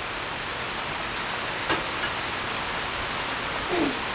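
Heavy rain pouring down steadily in a downpour, with a couple of sharp ticks in the middle.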